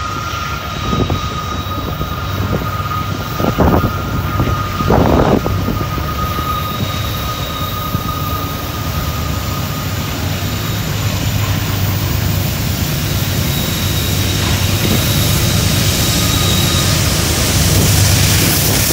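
Diesel-electric freight locomotives working hard up a steep grade, a steady heavy engine rumble that grows louder as they approach, with a thin high whine through the first part and two brief louder surges a few seconds in.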